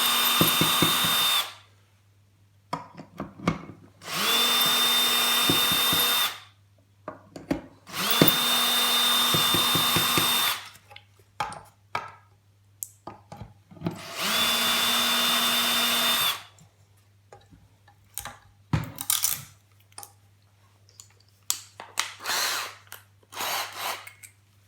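Cordless drill-driver unscrewing small screws from a Wi-Fi box casing: four short runs of the motor at a steady pitch, each about two seconds long, with pauses between. After the last run come light clicks and rattles of the parts being handled.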